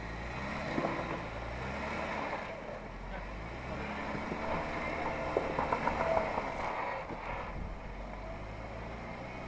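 Jeep Wrangler Rubicon's engine running steadily at low revs while the Jeep crawls over a rock ledge, with a few sharp knocks about a second in and a cluster of them past the middle.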